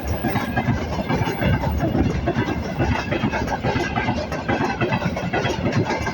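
Freight train rolling past, its wagon wheels clattering steadily and rhythmically over the rail joints.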